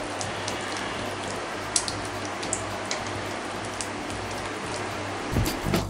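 Silicone spatula stirring wet cake batter in a glass bowl: a steady wet swishing with scattered light ticks against the glass. Music comes in near the end.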